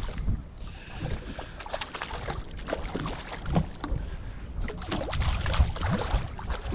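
Wind buffeting the microphone over water splashing as a hooked fish thrashes at the surface beside the boat, with irregular small splashes throughout.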